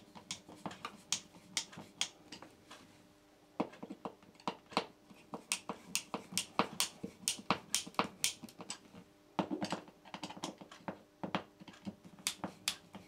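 Hand screwdriver tightening the fixing screws of a double electrical socket's faceplate: a run of sharp, irregular clicks, a few a second, with a short pause about three seconds in.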